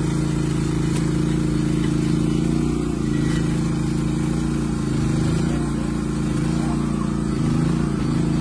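Komatsu PC01 micro excavator's small engine running steadily while the machine tracks along, its pitch shifting slightly a few times.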